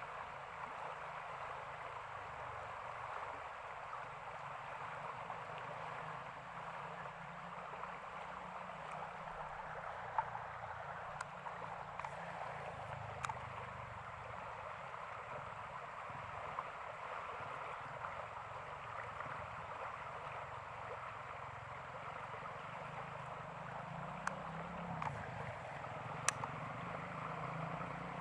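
Steady rush of flowing floodwater in a small stream, with a few faint clicks. A low hum grows near the end.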